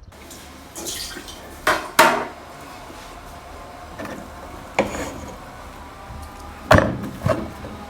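Cookware and utensils clattering: a handful of sharp clinks and knocks with a short ring, two about two seconds in and two more near the end, over a steady background hiss.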